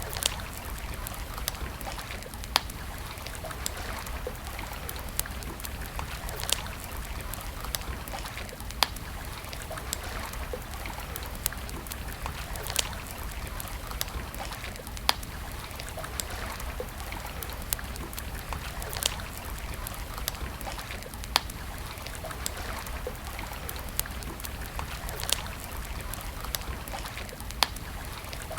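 Wood campfire burning, with a steady hiss and frequent irregular crackles, a few of them sharp, louder pops.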